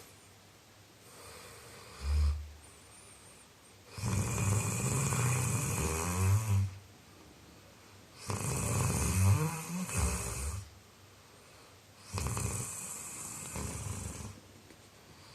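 A man snoring in deep sleep: a short low snort about two seconds in, then three long snores, one every four seconds or so.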